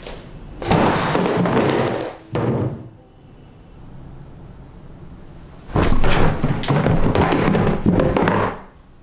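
Two long bursts of loud crashing and clattering: one about a second in with a short second hit right after, and a longer one from about six seconds in until near the end.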